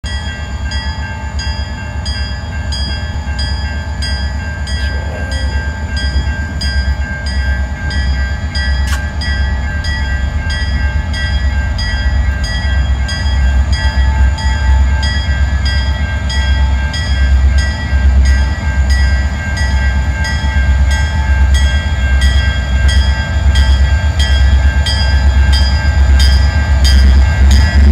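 Railroad crossing bells ringing in a steady, rapid repeating pattern over a low rumble. The rumble grows louder as a diesel freight locomotive approaches and reaches the crossing near the end.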